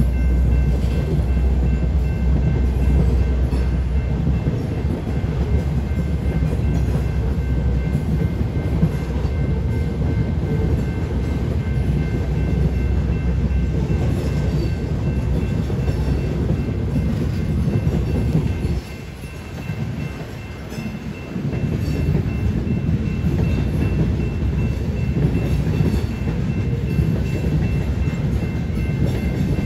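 Union Pacific grain train's covered hopper cars rolling past a grade crossing: a steady rumble of steel wheels on rail. The rumble dips for about two seconds roughly two-thirds of the way through, then resumes.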